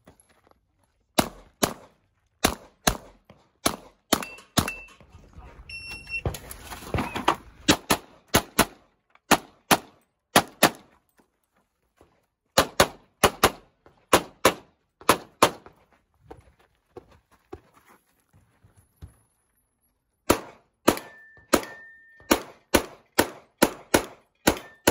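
Strings of rapid pistol shots from an STI DVC-L .40 competition pistol, mostly fired in quick pairs with short pauses between strings. A few hits on steel targets ring briefly after the shots.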